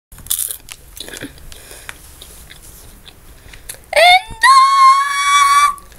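A few faint clicks and a brief hiss, then about four seconds in a high-pitched voice gives a short sliding cry followed by a long high held note of about a second and a half.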